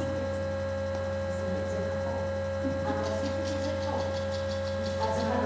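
Steady electrical mains hum while the string orchestra is silent, with a few faint clicks about three seconds in.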